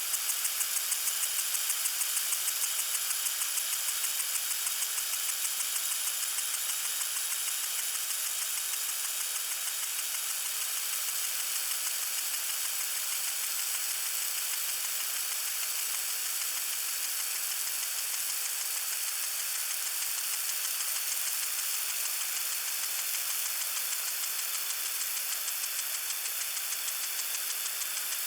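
Lawn sprinkler spraying water: a steady hiss with a fast, even pulsing, strongest in the first several seconds and smoothing out later.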